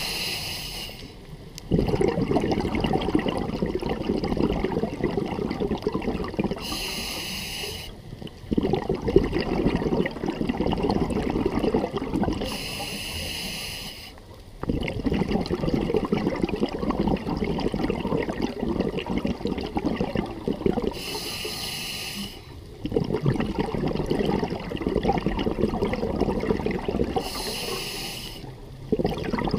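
Scuba diver breathing through a regulator: four short hissing inhales, six to eight seconds apart, each followed by several seconds of bubbling, rumbling exhaust as the breath is let out.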